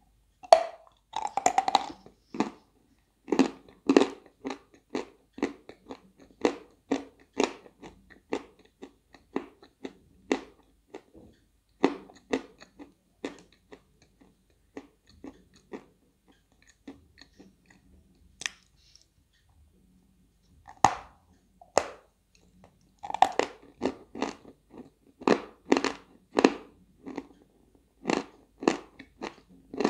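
Dry 'White Velour' eating chalk being bitten and crunched between the teeth close to the microphone, in crisp crunches about two a second. The crunching thins out for a few seconds midway and then picks up again.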